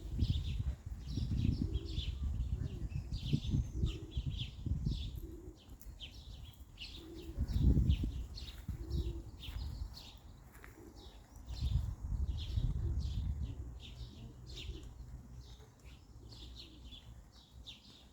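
Small birds chirping over and over, short high chirps coming thick and fast throughout. Bouts of low rumbling come and go beneath them, loudest about eight seconds in.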